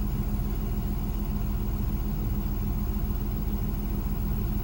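Diesel engine of a Freightliner XC motorhome chassis idling steadily, heard from inside the cab.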